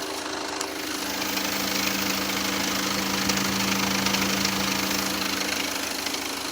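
BMW X1 engine idling with a continuous rattle from the front accessory belt drive. The rattle is traced to a vibrating belt tensioner and its pulley: it goes away once the belt is removed.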